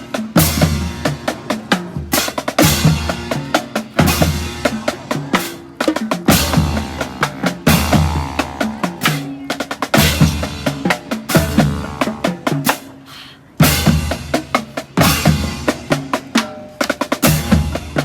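Live street marching band playing, with snare and bass drums driving a steady beat over sustained horn lines.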